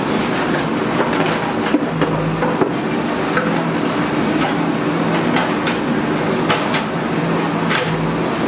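Diesel engine of a JCB earthmoving machine running steadily, with frequent sharp metallic clanks and knocks over it.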